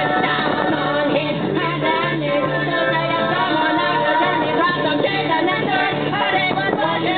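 Song with singing over a steady, repeating bass line.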